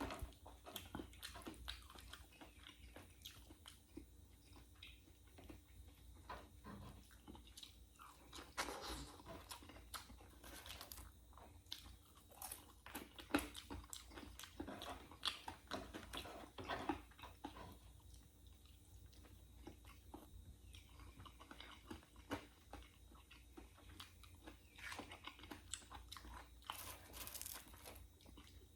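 A person chewing and biting crunchy fried food close to the microphone, with irregular crackling crunches; the crunching is busiest in the middle and near the end, with a quieter stretch between.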